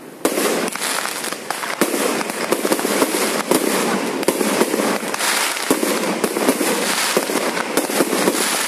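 Aerial fireworks going off overhead: a dense, continuous crackle broken by many sharp bangs and pops, starting abruptly just after the beginning.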